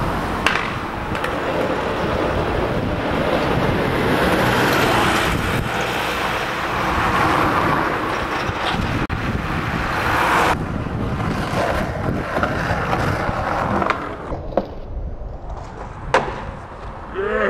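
Traffic passing on the road, a car and then a small truck, over the rumble of skateboard wheels on asphalt. After it quietens, two sharp clacks of a skateboard popping and landing a trick.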